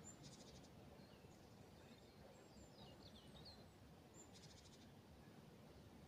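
Faint birdsong: small birds chirping and whistling in short, scattered notes, with a brief fast high trill near the start and again about four and a half seconds in, over a low steady background hum.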